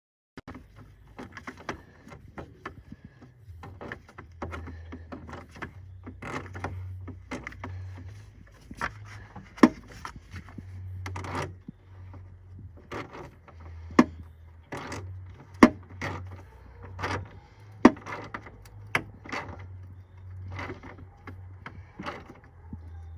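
Hand ratchet and socket tightening a battery hold-down bolt: irregular metal clicks and scrapes, with a few sharp, louder clacks through the middle.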